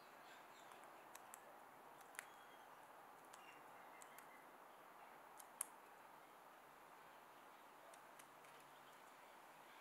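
Faint, sharp taps of Australian magpies' beaks pecking seed from a tray and plate, scattered irregularly with the loudest about five and a half seconds in, over a low steady hiss.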